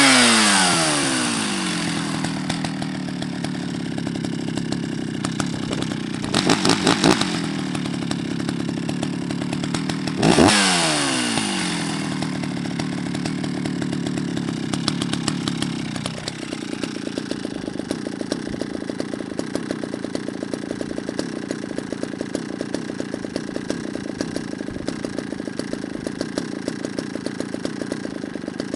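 Jonsered 70E two-stroke chainsaw engine coming down from a rev and idling, blipped briefly twice (about six and ten seconds in) and settling back to a steady idle each time.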